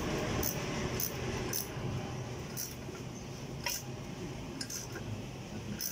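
Background noise: a steady low rumble with short, high-pitched chirps coming irregularly, about every half second.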